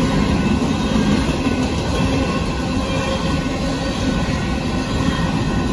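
Freight train of covered hopper cars rolling past at a grade crossing: a steady, unbroken rumble of steel wheels on the rails.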